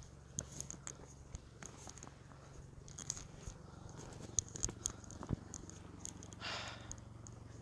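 Footsteps on bare shoreline rock: scattered sharp clicks and scuffs of shoes, over a steady low hum, with a brief rustle near the end.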